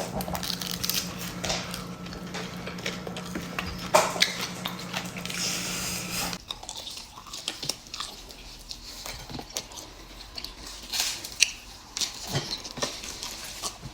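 People eating: chewing and biting, with cutlery clicking and scraping on dishes and a sharper knock about four seconds in and again near eleven seconds. A steady low hum runs underneath and cuts off about six seconds in.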